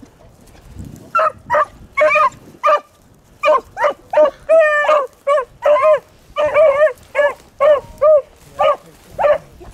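Beagles giving tongue while trailing a rabbit's scent: a run of short, pitched barks, a little over two a second, starting about a second in, with one longer drawn-out bay near the middle.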